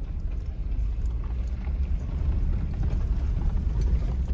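Off-road vehicle driving slowly over a rough dirt track: a steady low rumble of engine and tyres, with small scattered clicks and knocks.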